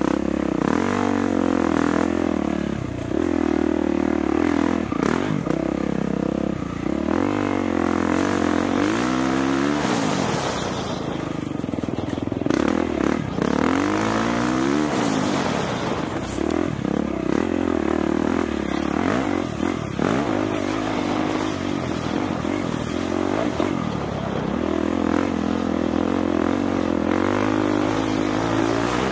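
Dirt bike engine being ridden hard on a trail, its pitch repeatedly rising and falling as the throttle is worked and gears change.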